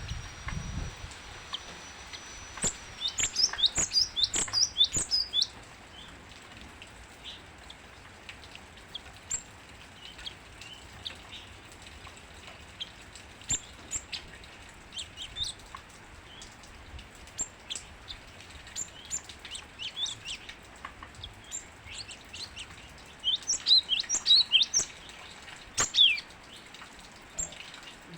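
Cinereous tit (gelatik batu) singing in rapid runs of sharp, high notes, one run about three seconds in and another near the end, with scattered single chirps in between.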